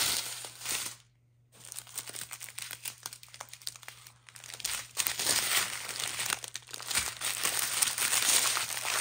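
Strips of small plastic zip bags of diamond-painting drills crinkling as they are handled and laid out, with many small clicks. The sound drops out briefly a little after a second in and grows louder in the second half.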